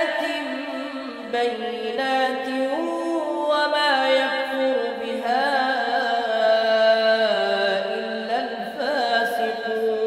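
Quran recitation in Arabic: a single voice chanting slowly and melodically, holding long notes that slide and turn between pitches.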